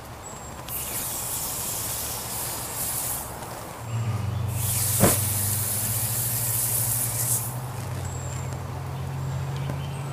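Red-hot AK-74-style muzzle brake hissing and sizzling in burning petroleum-jelly ballistics gel, in two stretches of a few seconds each, with a sharp pop about halfway through.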